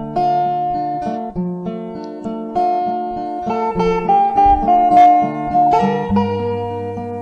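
Acoustic guitar playing the instrumental introduction of a slow romance, notes plucked and strummed in changing chords.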